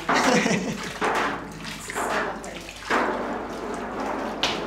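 Curd and whey sloshing in a copper cheese cauldron as the curd is broken up and stirred by hand, in sweeps about once a second.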